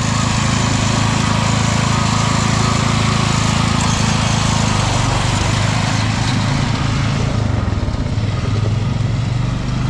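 Toro riding lawn mower's engine running steadily under load as the mower struggles for traction, its note changing about halfway through. The riders put the poor drive down to a slipping drive belt.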